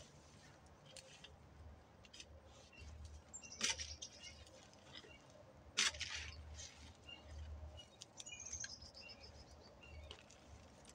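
Faint scraping and knocking of a garden fork working the soil, with two sharp knocks about four and six seconds in. A bird chirps in a quick run of high notes near the end.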